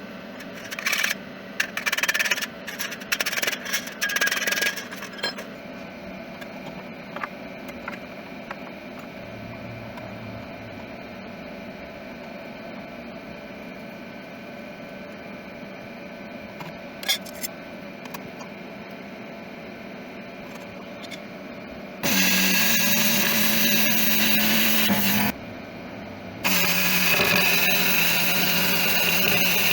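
Angle grinder running steadily for about three seconds, stopping for a second, then starting again and running on, as sheet-steel bodywork is worked for a patch repair. A few short, sharp bursts come earlier, near the start.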